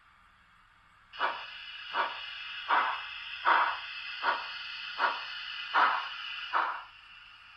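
Model steam locomotive's sound unit playing steam chuffs over a steady steam hiss as the engine moves off slowly. Eight evenly spaced chuffs come about one every three-quarters of a second, starting about a second in, and the hiss lingers after the last one.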